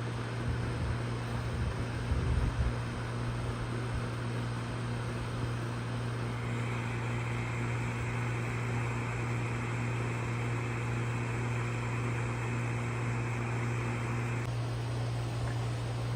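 Goodman heat pump outdoor unit running in heat mode, with a steady low hum and fan noise. A hiss joins in about six seconds in and stops abruptly about two seconds before the end.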